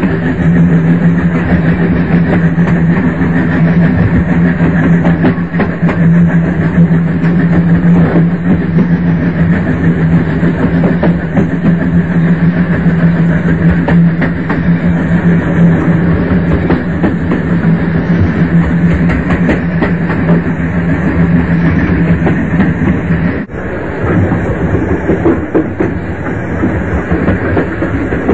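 Train running on rails: a continuous rolling rumble with a steady low hum. It breaks off briefly and changes character about 23 seconds in.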